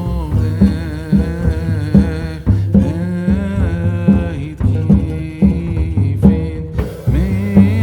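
Background music with a steady beat, a bass line and a wavering melody over it.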